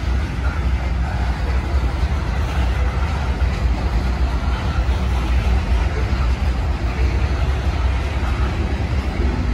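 Covered hopper cars of a freight train rolling past: a steady rumble of wheels on rail, with no horn or engine.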